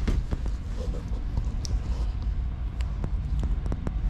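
Steady low rumble of handheld-camera handling noise, with a scatter of light irregular clicks and taps from footsteps as the camera is carried along.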